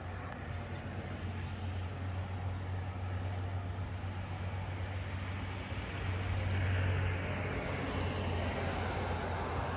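Road traffic: a steady low hum of passing vehicles, growing louder as one goes by about six seconds in.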